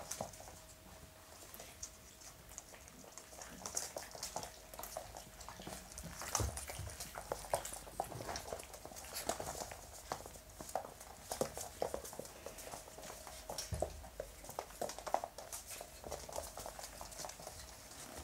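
Month-old Hungarian Vizsla puppies moving about and playing, with irregular small taps and clicks of paws and claws. Partway through comes lapping at a metal water bowl.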